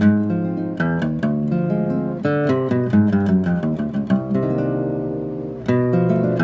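Seven-string acoustic guitar (violão de sete cordas) built by the luthier Dominus Agostinho, played solo: a plucked melody and chords over low bass notes, with a chord left ringing from about four seconds in before a strong new chord near the end.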